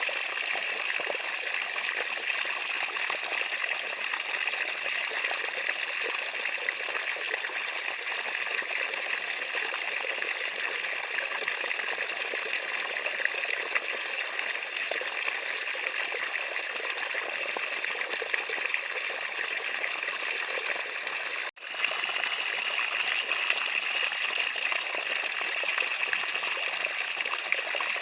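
Water trickling and flowing steadily. About three-quarters of the way through, the sound cuts out for a split second, then resumes.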